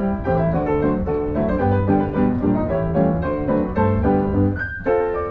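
Piano music playing, a run of quick notes over a bass line, with a brief break near the end.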